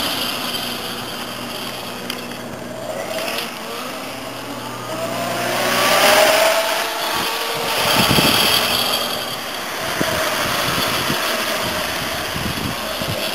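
Electric trike's Lynch electric motor whining as it drives and accelerates, its pitch rising and falling with speed. It is loudest as it passes close, about six and eight seconds in.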